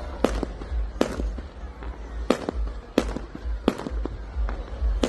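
Fireworks bursting: about six sharp bangs at irregular intervals, roughly a second apart, over a steady low rumble.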